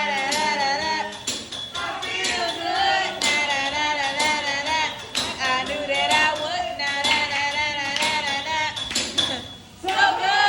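Music with a singing voice over a regular beat, with a short drop in level just before the end.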